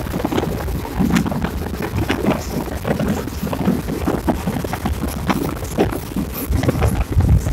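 Wind buffeting the microphone at the window of a moving passenger train, over the steady rumble of the train running on the track, with scattered clicks and knocks.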